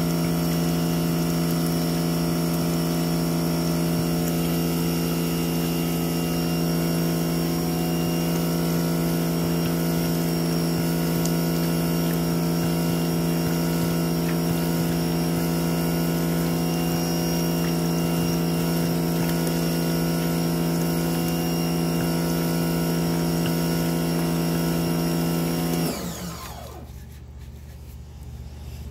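Sun Joe SPX3000 electric pressure washer's motor and pump running steadily with a strong hum, driving a sewer jetter hose to blast a clog out of a kitchen drain line. It shuts off near the end and winds down.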